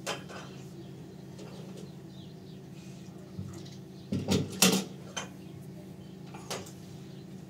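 Tea glasses and a teapot clinking and knocking on a metal tray as tea is served: a click at the start, a quick cluster of sharp knocks a little past halfway, and one more clink near the end, over a steady low hum.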